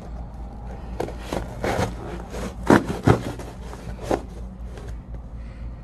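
Packaging being handled during an unboxing: irregular scraping and rubbing with scattered knocks, the two sharpest knocks coming close together about three seconds in.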